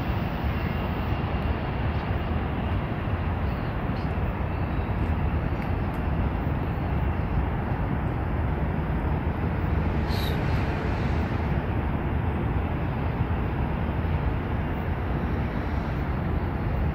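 Steady outdoor city background noise with a low rumble, with a brief high-pitched sound about ten seconds in.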